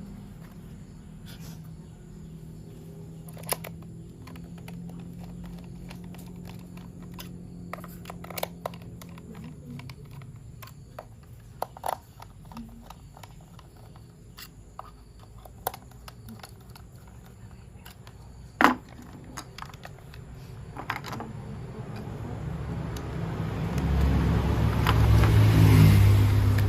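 Plastic toy train parts clicking and tapping as they are handled and fitted together, in scattered sharp clicks. Near the end a low rumbling noise swells up and grows loudest.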